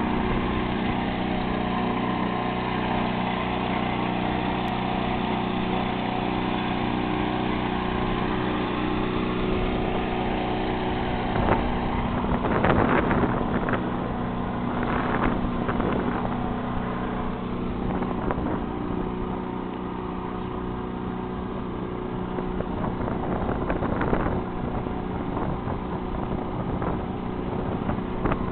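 Outboard motor of an inflatable yawl boat running steadily at a constant drone while pushing an engineless schooner along. A rushing noise swells a few times in the middle.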